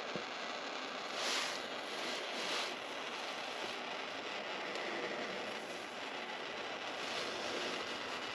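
Handheld gas torch flame running with a steady hiss, swelling briefly about a second in and again about two and a half seconds in, while it heats solder onto a wire.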